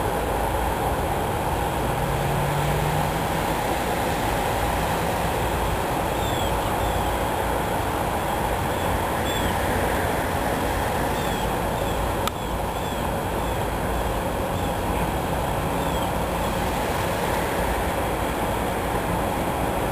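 Steady rushing background noise, with faint short high chirps now and then and one sharp click about twelve seconds in.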